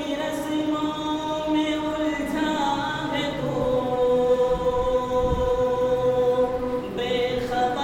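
A man chanting in a drawn-out melodic voice through a microphone and loudspeaker, with one note held steady for several seconds in the middle.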